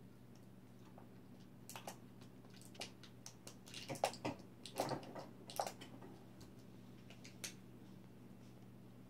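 Light, irregular clicks and taps, densest and loudest about four to six seconds in, over a faint steady low hum.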